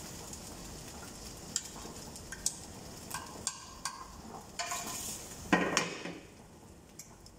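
Chicken sizzling on a ridged grill pan over a gas flame, with metal tongs clicking and scraping against the pan as pieces are lifted out. A louder clatter comes about five and a half seconds in, and the sizzle fades after it.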